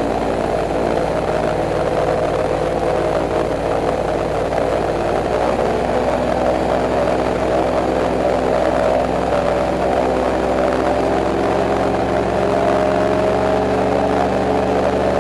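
Airboat's engine and air propeller running steadily under way, a loud, even drone with a stack of steady tones.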